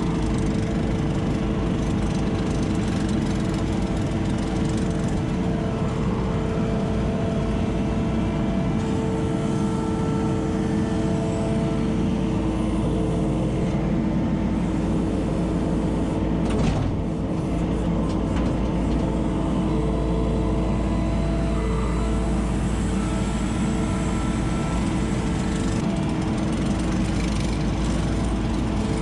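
ASV RT-40 compact track loader's diesel engine running steadily, heard from inside the operator's cab as the machine drives and works its loader arms. A single sharp knock about seventeen seconds in.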